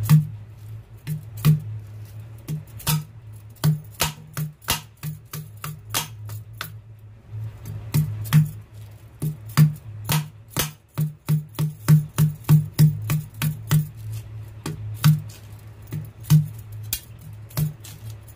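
Large kitchen knife chopping into the husk of a green coconut: sharp strikes at an uneven pace, over background music with a steady low beat.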